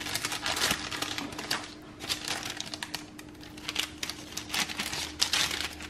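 Knife sawing through a pan of baked brownies on parchment paper: an irregular series of short, dry scraping strokes as the blade cuts the crust and rasps against the paper.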